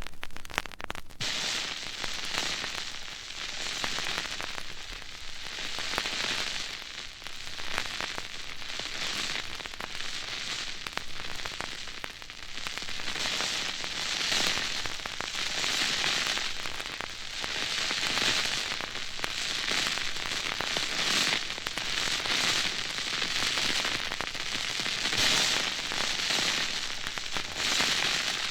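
A lit gunpowder fuse burning, a crackling, sputtering hiss that swells and fades every second or two.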